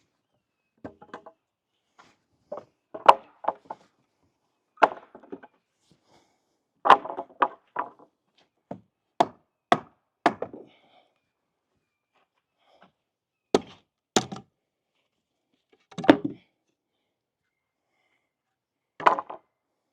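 Old wooden deck being taken apart by hand: irregular sharp wooden knocks and whacks, some single and some in quick clusters, with short pauses between them.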